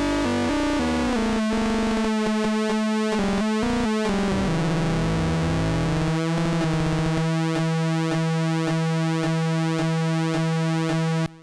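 Moog Mother-32 analog synthesizer playing a few notes with its LFO at audio rate modulating pulse width and pitch, giving a buzzy, shifting tone whose overtones glide as the LFO rate is swept. From about seven seconds in it holds one steady note, which cuts off suddenly near the end.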